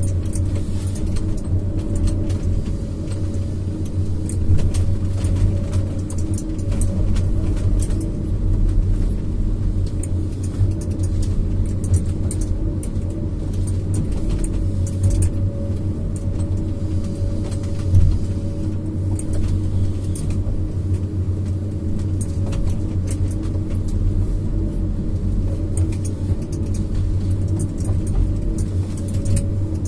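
Diesel engine and hydraulics of a Komatsu PC200-based tree harvester running steadily under load, heard from inside the cab. Many short sharp cracks and rattles from the harvester head working the stems, with one louder knock a little past halfway.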